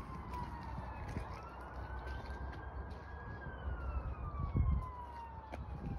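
Emergency vehicle siren wailing, its pitch slowly falling, rising and falling again over several seconds, over a steady low rumble. A brief low thump comes about four and a half seconds in.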